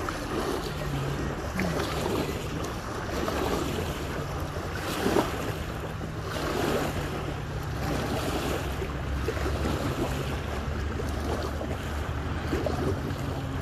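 Small waves lapping and splashing at the shoreline in surging swells, with wind rumbling on the microphone and a low steady hum underneath.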